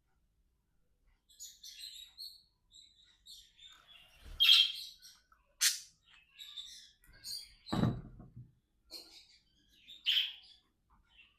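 Pet budgerigars chattering in quick, high chirps and warbles, with a few louder sharp calls in the middle.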